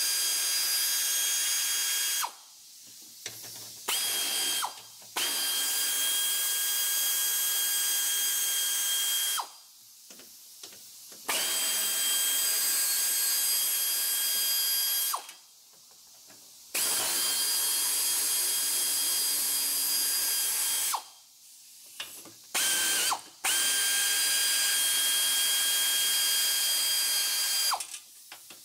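Pneumatic air ratchet running as it backs out 13 mm bolts. It gives a steady whine and hiss in runs of several seconds, with short pauses between runs.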